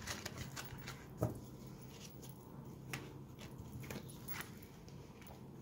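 Tarot cards being gathered up and handled on a cloth-covered table: a few faint, scattered soft clicks and slides, the clearest about a second in.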